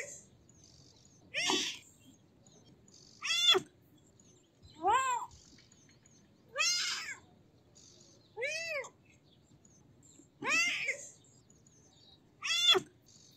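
Kitten meowing over and over, seven meows about two seconds apart, each one rising and then falling in pitch.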